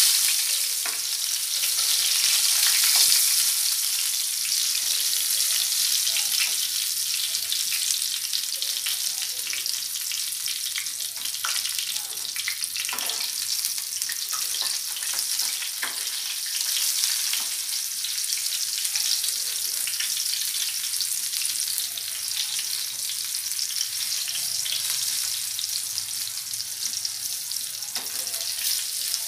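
Brinjal halves coated in spice paste sizzling steadily in hot mustard oil in a metal frying pan, with a few light scrapes and taps of a spatula against the pan as the pieces are turned.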